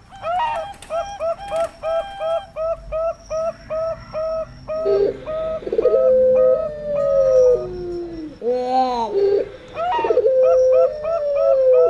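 Doves cooing. A rapid string of short, even coos comes at about four a second, in the manner of a zebra dove (perkutut). Then long drawn-out coos slide down in pitch, the howl-like call of a puter pelung dove.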